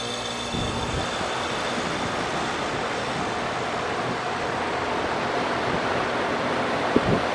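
2000 Philco heat pump outdoor unit running through its defrost cycle with a steady rushing hiss, and a short knock near the end.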